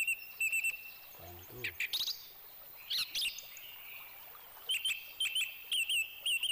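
A bird calling in quick runs of short, high chirped notes, each note flicking up and down in pitch, once at the start and again for the last two seconds, with a few single calls in between.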